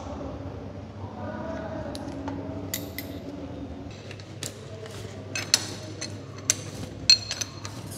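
Sharp metallic clinks of a steel combination spanner knocking against the nut on a motorcycle's steering head as it is worked loose, several in the second half, the loudest a little before the end.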